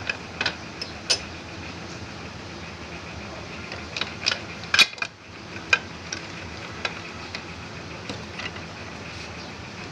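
Light metallic clicks and clinks of metal parts and tools being handled, about a dozen spread irregularly and loudest around the middle, over a steady background hum.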